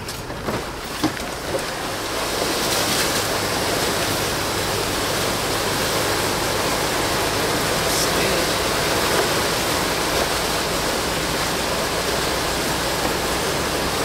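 Steady rush of floodwater over a low river bridge and under the tyres of a Land Rover Defender 110 driving through it, heard from inside the cab, growing louder about two seconds in. The vehicle's engine runs faintly underneath.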